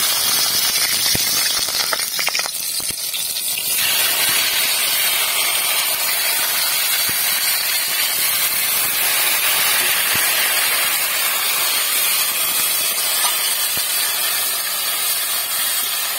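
Hot oil sizzling loudly and steadily in an iron kadai as chopped green chillies and then tomato pieces fry. A steel spatula clicks and scrapes against the pan a few times in the first seconds.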